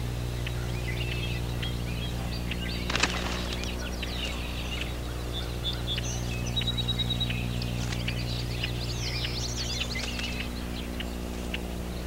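Red-winged blackbirds calling in many short chirps, with one sharp click about three seconds in, over a steady low hum.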